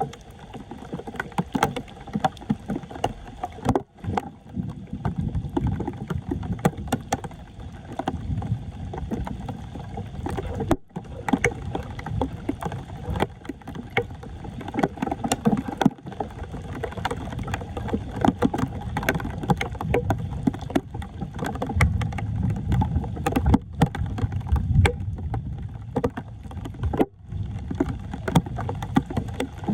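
Floodwater sloshing and splashing with many small knocks and splashes, from work to clear a clogged street drain. The sound cuts out briefly three times.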